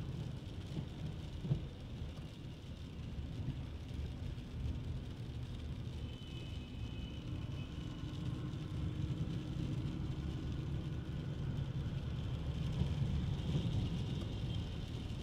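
Low, steady rumble of street traffic, with faint high tones coming and going.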